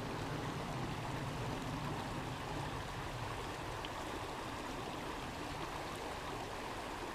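Steady rushing of a trout stream's water running over small rapids.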